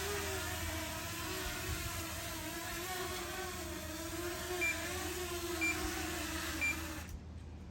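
Potensic Atom drone's propellers whirring, the pitch wavering as the motors correct; three short electronic beeps come about a second apart, and the motors then cut off abruptly near the end as the drone lands and shuts down.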